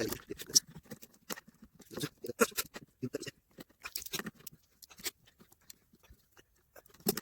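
A screw being worked out of a wooden box hive lid: irregular clicks, scrapes and knocks of the tool on the screw and the wood, in scattered groups.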